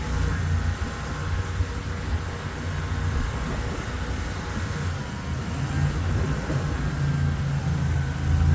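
Mini skid steer's engine running under work, its note easing a little in the middle and picking up again near the end.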